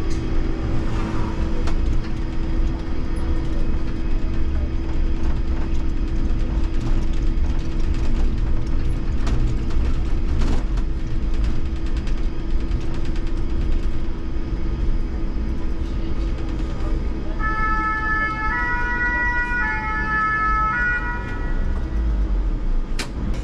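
Electric trolleybus cab noise: a steady low rumble with a steady hum as the IMC Hess Lightram 19 DC drives through the city. About three quarters of the way in, a fire engine's two-tone siren alternates between two pitches for about three seconds, and a sharp click follows near the end.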